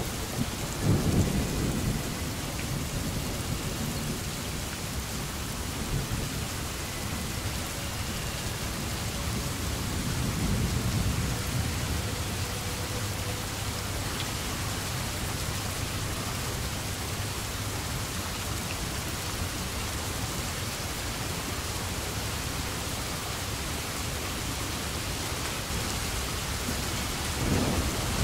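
Steady rain, with low rolls of thunder swelling about a second in, again around ten seconds in, and near the end.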